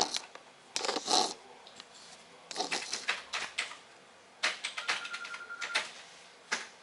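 Irregular bursts of clicking and rustling handling noise, with a steady electronic beep lasting about a second just past the middle.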